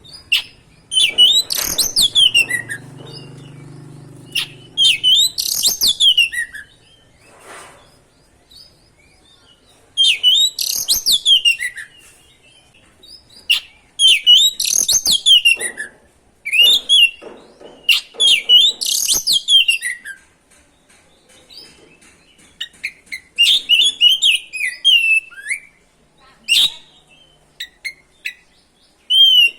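Oriental magpie-robin (kacer) singing loud, varied whistled phrases. Each phrase lasts a second or two, and they repeat about every four seconds with short pauses between.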